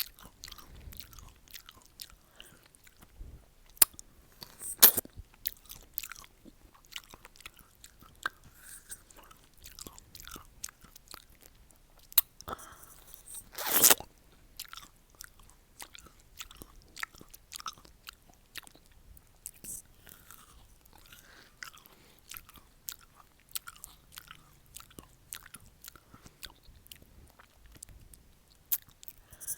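A person biting into and chewing a crisp pear: crunching bites and wet chewing, with the loudest bites about four to five seconds in and again around thirteen seconds in.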